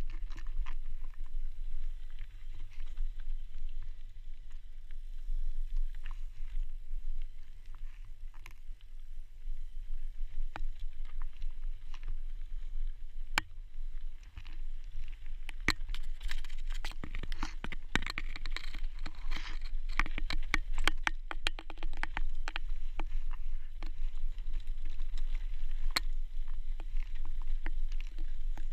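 Mountain bike rolling fast down a dry, loose gravel trail: a steady rumble of wind on the microphone, with tyres crunching over stones and the bike rattling and clicking. The clatter gets much denser over rougher ground about two-thirds of the way through.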